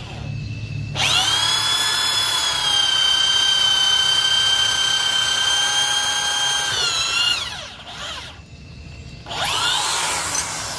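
Ryu RID13-1RE 600 W corded impact drill, switched to plain drilling without hammer action and set to a low variable speed, boring a 6 mm hole through 2 cm wood. The motor whine comes up about a second in, holds a steady pitch for about six seconds, then winds down with falling pitch; it is run again briefly about nine seconds in and winds down once more.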